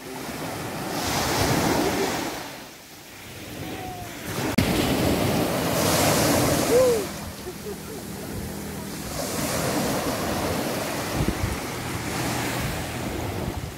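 Small sea waves breaking and washing up a sandy shore, the wash swelling and fading three times, once every four seconds or so.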